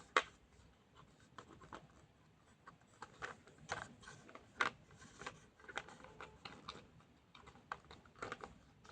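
Faint, irregular clicks and taps of small plastic toy pieces being handled as a tiny Polly Pocket figure is fitted into a plastic toy rocket.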